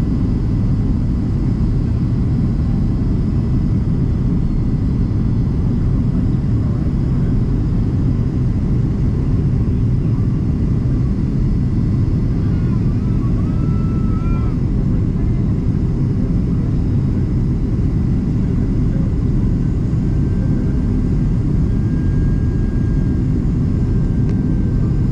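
Inside the cabin of a Boeing 767-300ER on its descent into landing, the turbofan engine and airflow make a steady, loud low rumble. A faint steady high tone joins in during the last few seconds.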